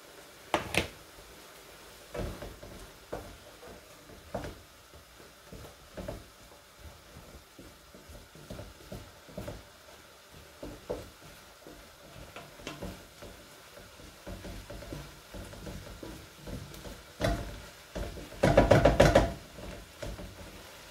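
Wooden spatula stirring turkey mince and onions in a frying pan, knocking softly against the pan over a faint sizzle. About 17 seconds in, a run of louder knocks.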